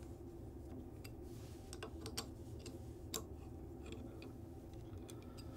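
Faint, irregular metallic clicks of an Allen wrench working the countersunk bolts in a harmonic damper's face, over a low room hum.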